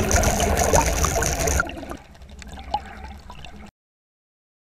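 Rushing, bubbling water noise: loud at first, falling to a fainter wash about one and a half seconds in, then cutting off suddenly about a second before the end.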